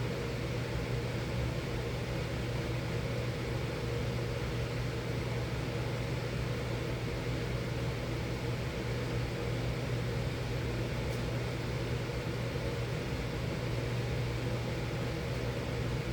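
Miller E3 electric furnace running steadily: an even rush of blower air with a constant low hum underneath.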